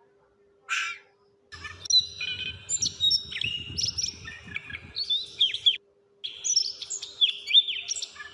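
A short, harsh call under a second in, then birds chirping and whistling in quick, overlapping rising and falling notes, with a brief pause about two-thirds of the way through.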